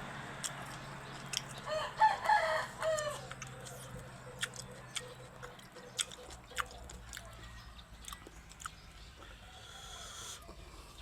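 A rooster crowing once, about two seconds in, amid scattered sharp clicks and taps.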